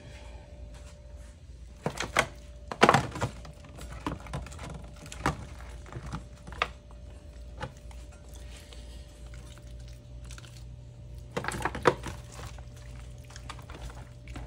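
Kitchen handling noises: scattered knocks and thuds of things being set down and moved about, loudest about three seconds in and again near the end, over a faint steady hum, with a low hum coming on about two-thirds of the way through.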